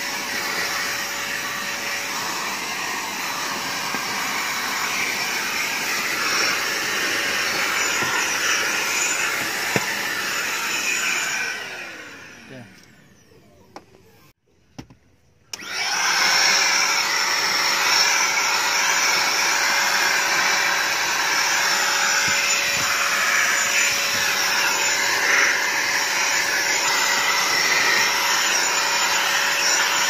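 Deerma DX115C handheld corded vacuum cleaner running steadily while sucking dust from a car's floor mat. About twelve seconds in its motor winds down to a stop, and a few seconds later it starts up again and runs on.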